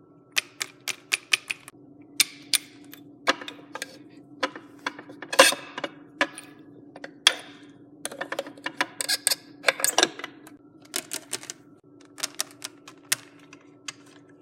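Small hard plastic toy figures and play pieces clicking and tapping against each other and a surface as they are moved around, in irregular bursts of quick clicks with short pauses between.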